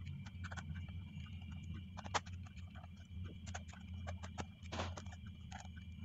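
Small scattered clicks and ticks of a pentalobe screwdriver working the tiny screws out of a MacBook Air's aluminium bottom case, with one sharper click about two seconds in. A steady low hum runs underneath.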